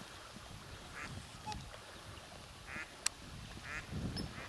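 A family of whooper swans with cygnets giving a few short, soft calls, about three spread over a few seconds. A single sharp click comes near the middle.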